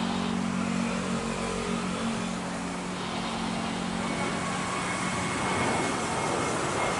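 Twin jet engines of a Batik Air Boeing 737 at takeoff power as it climbs out: a steady, broad jet roar. A low hum underneath fades out about three seconds in.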